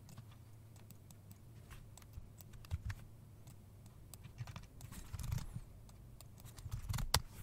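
Scattered faint clicks of a computer mouse and keyboard while working in software, with a few louder clicks near the end.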